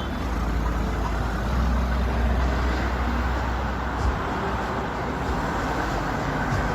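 Steady low rumble of street traffic, with a short knock about four seconds in.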